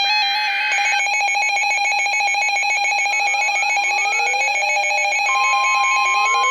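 Several electronic weather-alert alarms sounding at once, layering warbling, rapidly pulsing and rising sweeping tones. About five seconds in, a steady single-pitch tone joins them: a weather radio's warning alarm tone.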